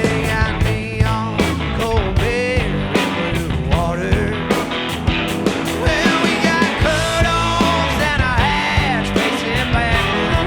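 Live blues-rock band playing: electric guitar, bass guitar and drums, with a steady beat.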